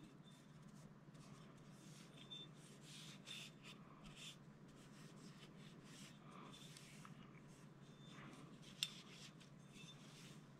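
Faint rubbing and light scratchy ticks of an oiled cotton patch wiping down the slide of a Springfield XD-M 9mm pistol, with one sharp click about nine seconds in.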